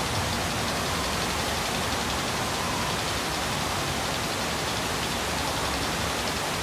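Water rushing steadily down the drop chute of a log flume ride, a constant even hiss of running water.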